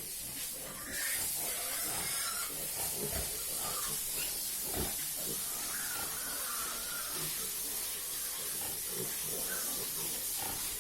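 A steady, high hiss comes in about a second in and stops near the end, with faint pig grunts underneath.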